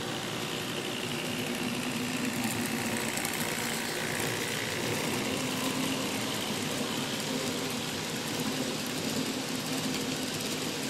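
N-scale model train running along a shelf layout: a steady whir of the locomotive's motor and wheels rolling on the track.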